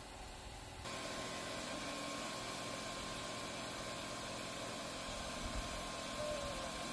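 IKIER K1 36W diode laser cutter running while it cuts through 6mm MDF. Its air-assist compressor and machine give a steady hum and hiss with a faint high tone, which gets louder about a second in.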